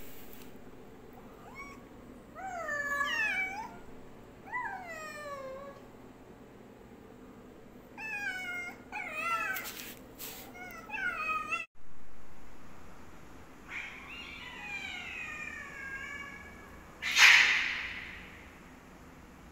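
Cats calling: a series of short, rising-and-falling meows, then a long, wavering yowl and a sudden loud hiss as two cats face off.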